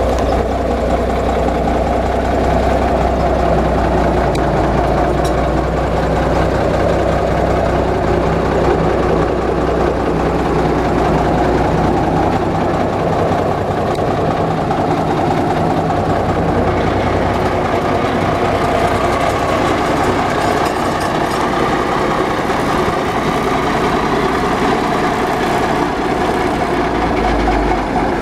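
A 1966 Peterbilt 351 truck's engine idling steadily.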